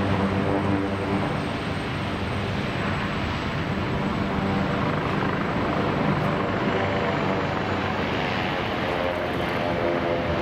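Engines and tyres of a police motorcade, cars and a motorcycle, driving past on a city street: a steady traffic sound with no sirens.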